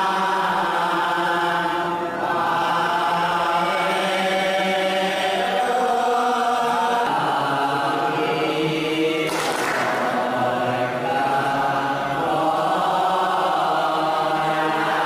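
A group of men chanting a devotional hymn together in long held notes, with a short noisy burst about nine seconds in.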